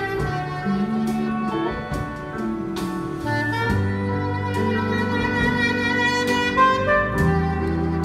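Live jazz band: a soprano saxophone plays a sustained melody over electric bass and drum kit, with cymbal strokes, keyboard and electric guitar behind it.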